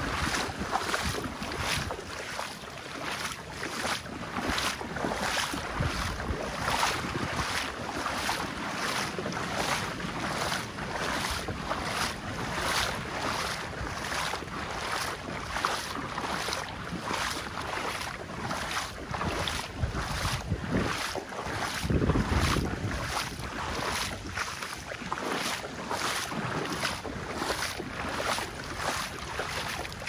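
Footsteps at a steady walking pace, a little under two steps a second. Now and then wind buffets the microphone with a low rumble, most strongly about two-thirds of the way through.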